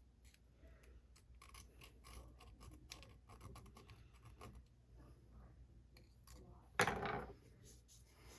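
Side of a metal screwdriver blade scraping gummed, corroded residue out of a fishing reel's drag, a run of faint scratches and small clicks. There is one louder brief noise about seven seconds in. The residue comes from moisture getting in and gumming up the drag washers.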